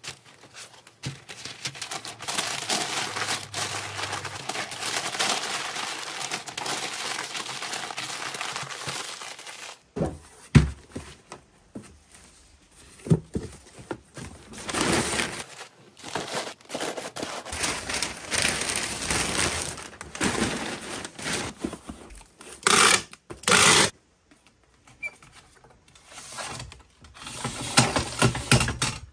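Brown kraft packing paper crumpled and rustled steadily for about ten seconds, then intermittent rustling and knocks of a corrugated cardboard box being handled and packed.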